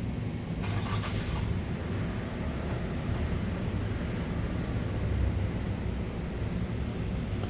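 Car engine running steadily, a low hum over street noise.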